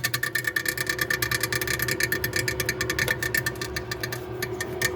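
Freezer fan of a Continental frost-free refrigerator running with its blades striking built-up ice: a steady hum with a rapid ticking clatter, roughly a dozen clicks a second, thinning out near the end. The ice builds up because the freezer's defrost is not clearing it, and it is the cause of the fridge's loud noise.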